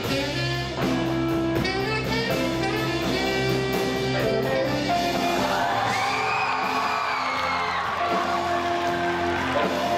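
Live blues band playing: saxophone over electric bass guitar and drums, with long notes bending up and down in pitch in the second half.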